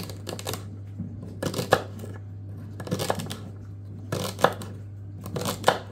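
Chef's knife chopping celery stalks on a wooden chopping board: short runs of cuts about every second and a quarter, each cut ending in a tap of the blade on the board. A steady low hum runs underneath.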